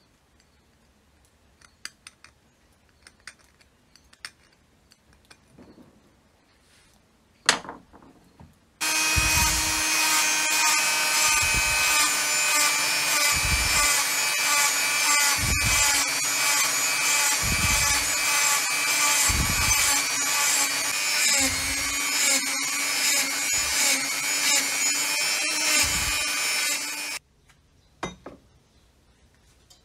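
An electric power tool runs steadily for about eighteen seconds, switching on and off abruptly, with a dull low bump about every two seconds while it works. Before it starts there are a few light clicks and one sharp click.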